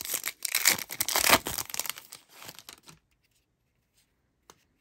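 A shiny foil trading-card pack wrapper is torn open and crinkled for about three seconds. After that there is a faint click.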